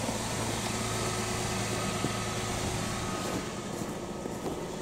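A car engine idling: a steady, even low hum with no change in speed.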